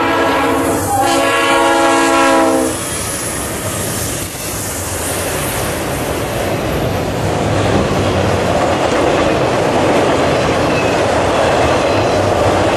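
Diesel freight locomotive horn blowing, dipping briefly about a second in and cutting off a little under three seconds in. Then the steady rumble and clickety-clack of a long string of autorack freight cars rolling past close by.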